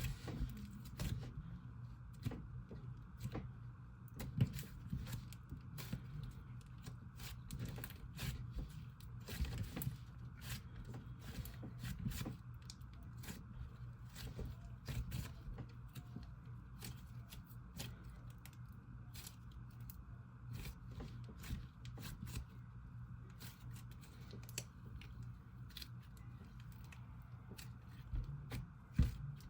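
Hands squishing, stretching and poking a soft slime mixed with clay pieces and sprinkles, giving a long run of small irregular clicks and pops over a steady low hum.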